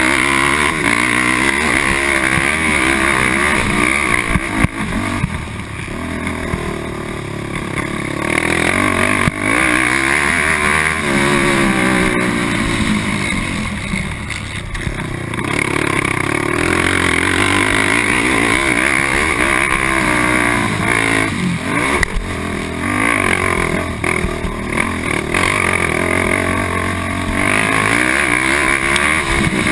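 Honda TRX450R quad's single-cylinder four-stroke engine at racing speed, revving up and down as the throttle is opened and rolled off, with a few short dips when it comes off the throttle.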